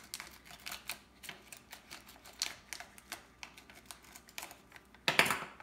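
Scissors snipping open a plastic seasoning pouch: a run of small sharp clicks and crinkles, then a louder rustle near the end.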